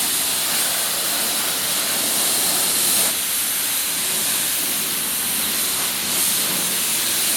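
Self-service car wash pressure wand spraying a steady high-pressure jet of water, hissing as it blasts dust and grime off a road bike.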